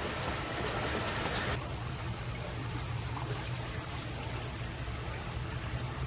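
Steady low hum with a faint trickle of running water, as from an aquarium filter pump. A higher hiss drops away about a second and a half in.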